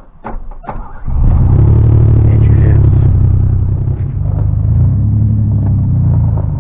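A few knocks, then about a second in the old Ranger's engine comes on loud and runs with a steady low drone.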